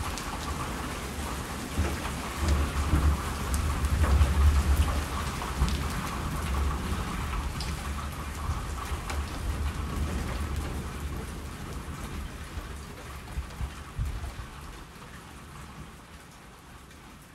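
Steady rain falling, with a low roll of thunder that swells a few seconds in and then slowly dies away.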